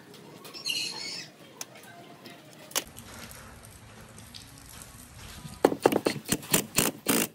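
Faint handling sounds with a sharp click, then, near the end, a run of loud, even scraping strokes, about three a second, like scrubbing or sanding by hand.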